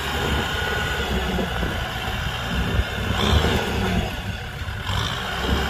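Kubota tractor's diesel engine running steadily, with a brief louder moment about three seconds in.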